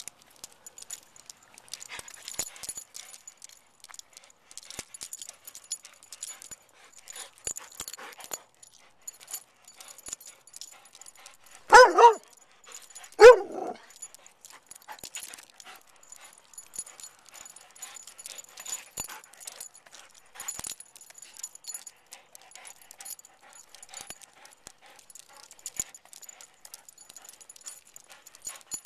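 A Vizsla barks twice, loudly, about twelve seconds in, the barks about a second and a half apart. The rest is light clicking and jingling as the dog moves about.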